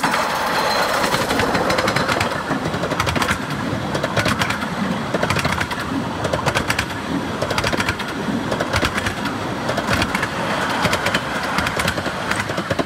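A 15-inch gauge miniature steam train running past close by: the locomotive goes by, then its carriages roll past with a continuous clatter of wheels clicking over the rail joints.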